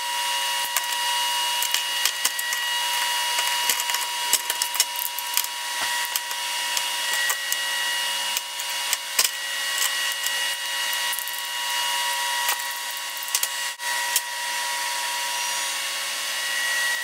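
Rapid clicks and clatter of small metal parts and hand tools being handled on a steel workbench, over a steady high whine.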